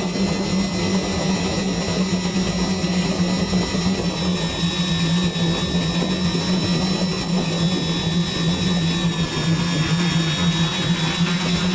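Quadcopter drone's propeller motors running steadily: a low hum with thin high whining tones that drift slightly in pitch.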